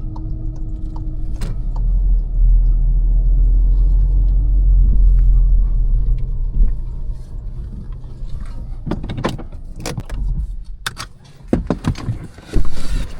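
Turbocharged 2.0-litre four-cylinder (EA888) engine of a tuned VW Golf GTI running with a steady low rumble. From about eight seconds in, a series of sharp clicks and knocks takes over, the loudest one near the end.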